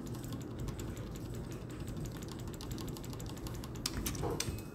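Computer keyboard keys clicking in quick succession, short light taps repeated many times: a shortcut such as Ctrl+D pressed over and over to duplicate shapes.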